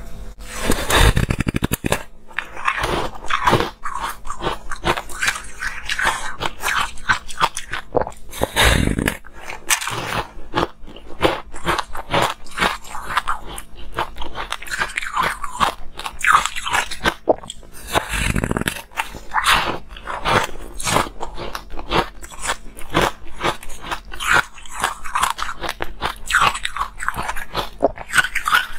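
Biting and chewing a slab of airy, rainbow-coloured ice: dense crackling crunches throughout, with three heavier bites, about a second in, about a third of the way through and about two-thirds through.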